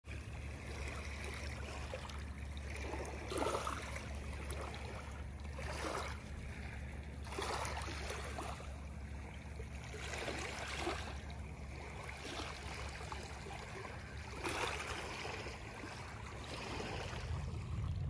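Small waves lapping on a pebble beach, each wash swishing over the stones and draining back every few seconds, over a steady low rumble.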